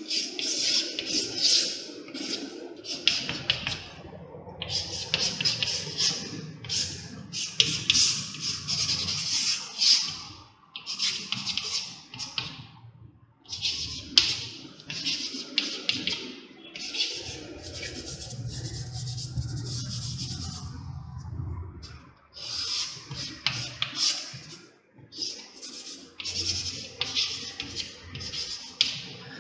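Chalk scraping on a chalkboard as lines and symbols are drawn: a long run of short scratching strokes with brief pauses between them.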